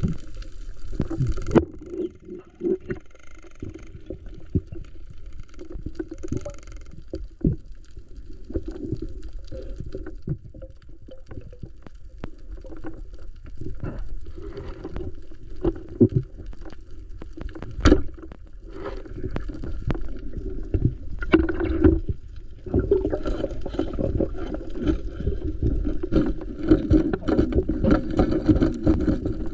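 Muffled water gurgling and sloshing with irregular knocks and clicks, growing louder and busier in the last few seconds.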